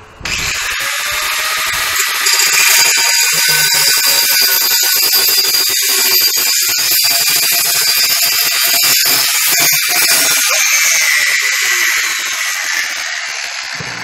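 Electric angle grinder with a cut-off disc spinning up and slicing through a steel tube, a harsh, loud, high grinding screech that gets louder about two seconds in as the disc bites. Near the end the grinder winds down and fades.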